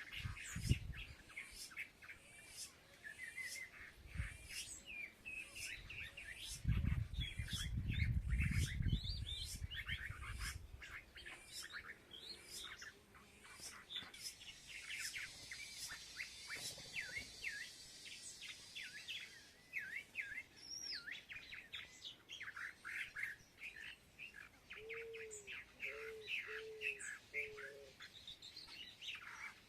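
A flock of small birds chirping and twittering continuously, many short overlapping calls. A low rumble sounds from about a quarter of the way in for a few seconds, and four short low notes come near the end.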